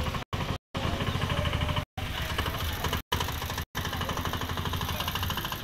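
A small engine running at a fast, steady beat, like a motorcycle idling close by. The sound cuts out briefly about five times.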